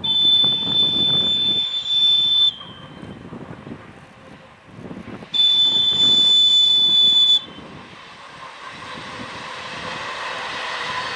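A locomotive's high-pitched whistle sounds two long blasts of about two seconds each, a few seconds apart, as a passenger train approaches. Near the end the running noise of the passing train builds up.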